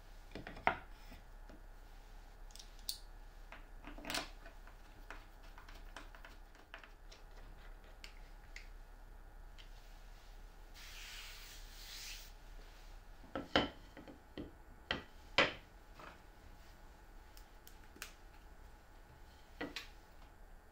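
Plywood panels handled and set into a plywood base, giving scattered light knocks and clicks. There is a short scraping hiss about halfway, then a run of sharper wooden knocks.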